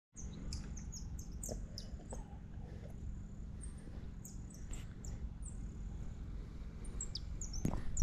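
Many short, high, squeaky bird-like chirps, most sliding downward, coming irregularly throughout over a steady low rumble. A louder knock comes near the end.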